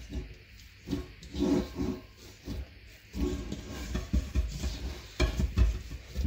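A hand kneading and pressing down soft, risen yeast dough in a metal bowl: irregular squishing and rubbing, with a few dull thumps about five seconds in.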